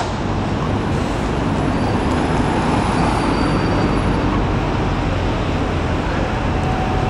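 Steady street traffic noise: an even, constant wash of sound from passing road vehicles.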